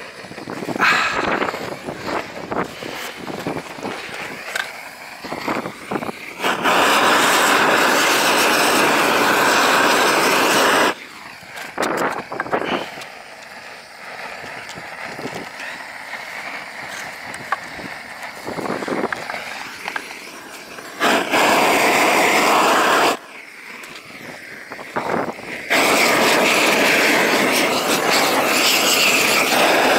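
Gas torch flame blowing in three long bursts, about four, two and five seconds long, each starting and stopping abruptly, as it heats torch-on bitumen felt. Between the bursts come light clicks and crackles.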